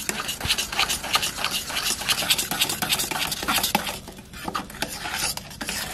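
Hand-held wire beater whisking cocoa powder, sugar and milk in a metal saucepan: quick, continuous scraping and clinking strokes against the pan, a little softer about four seconds in. The mixture is being beaten to work the airy cocoa in, break up the clumps and keep the bottom from scorching.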